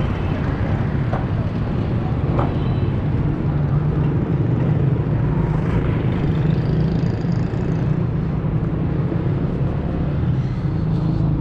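Street traffic: motorcycles passing close by, with a steady low rumble throughout.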